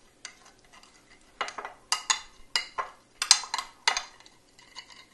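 Metal fork stirring and scraping in a glass baking dish, clicking against the glass in quick irregular strokes as gelatin powder is mixed with a little tap water to bloom. The clinks start about a second and a half in and thin out near the end.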